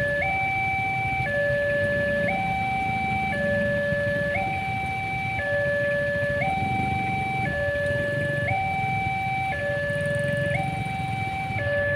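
Railway level-crossing warning alarm sounding a steady two-tone hi-lo signal, switching pitch about once a second, warning that a train is approaching. Underneath is the low rumble of motorcycle and car engines idling at the crossing.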